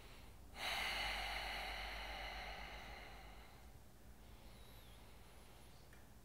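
A man's long, audible out-breath, a breathy sigh that starts about half a second in and fades away over about three seconds.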